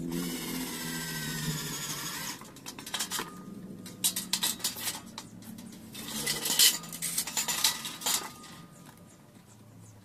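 Lengths of thin metal angle profile clinking and clattering against each other as they are handled and laid together, with a run of sharp metallic clinks loudest a little past the middle. This follows about two seconds of harsh hissing scrape at the start.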